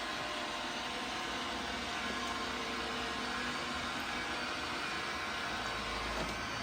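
iRobot Roomba robot vacuum running with a steady whir.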